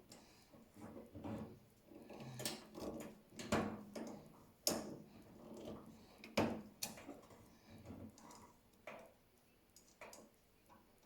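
Irregular clicks and light knocks, about eight over the stretch with soft handling noise between them, from hands working a metal clip onto a gas heater's hose.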